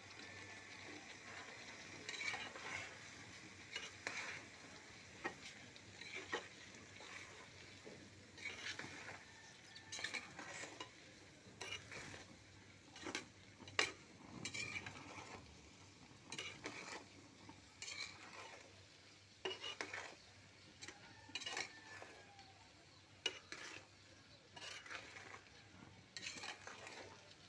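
Spatula stirring whole red chilies and garlic cloves frying in oil in a large pan: repeated scrapes and clinks against the pan about once a second over a low, steady sizzle.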